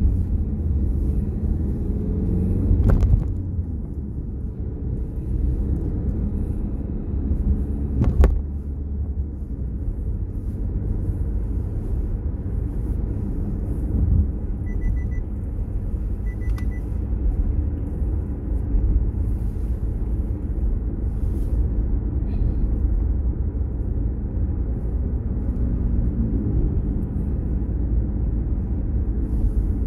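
Car cabin noise while driving: a steady low rumble of engine and tyres on the road. The engine note rises as the car accelerates near the start and again near the end, and there are two sharp knocks about three and eight seconds in.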